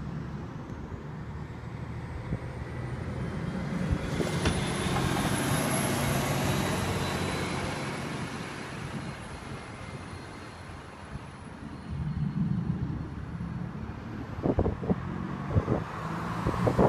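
Street traffic: a passing vehicle's noise swells about four seconds in, with a high whine on top, and fades away over several seconds, over a steady low engine hum. A few short knocks near the end.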